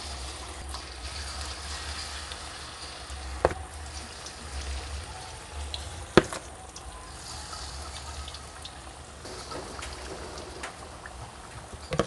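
Batter fritters deep-frying in hot oil in a wok, a steady sizzle and bubble. Two sharp knocks cut through, about three and a half and six seconds in, the second the louder.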